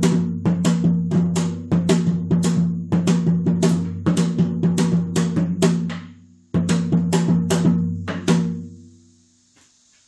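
Janggu, the Korean hourglass drum, struck in a quick rhythm of about four strokes a second, each stroke ringing low. It pauses briefly about six seconds in, picks up again, and stops a little before the end.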